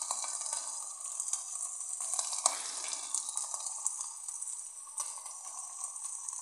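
Ground beef sizzling in a non-stick frying pan as it is stirred with a wooden spatula: a steady hiss with scattered sharp ticks, one louder about two and a half seconds in.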